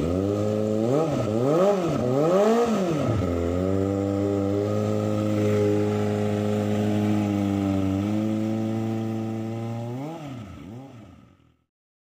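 Kawasaki Ninja ZX-25R's 250 cc inline-four revved through an aftermarket racing exhaust, the bike standing still. Three quick throttle blips, then the revs are held up steadily for about four seconds and drop back. Two more quick blips follow, and the sound fades out near the end.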